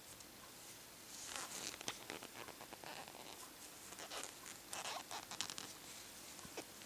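Crochet hook and yarn working a single-crochet-two-together stitch: faint, quick scratchy rustles as the yarn is wrapped and drawn through the loops, starting about a second in.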